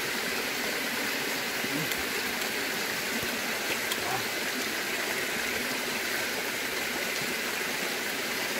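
Steady, even rushing of water, with a few faint ticks over it.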